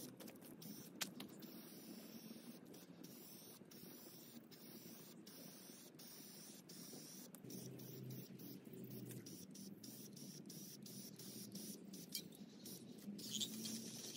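Faint hiss of a Rust-Oleum Gloss Protective Enamel aerosol spray can spraying paint onto a wooden chair, with many faint ticks. A bird chirps near the end.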